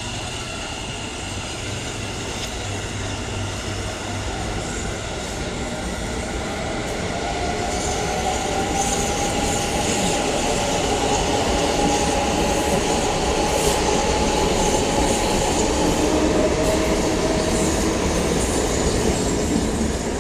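Electric commuter train running through the station, growing louder over the first dozen seconds and then holding, with a long whining tone that slowly shifts in pitch over a steady rumble.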